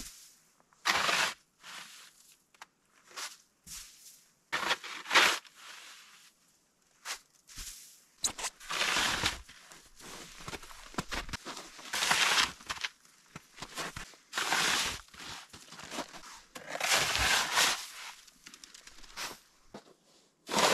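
Shovel digging and scraping into thawing snow piled against a log cabin's base: a string of short crunching scrapes, each under a second, coming every second or two with quiet gaps between.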